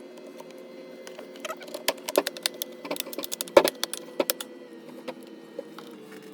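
Keys being typed on a Lenovo LOQ 15IAX9 laptop keyboard: an irregular run of key clicks for about three seconds, starting a second and a half in, over a steady hum.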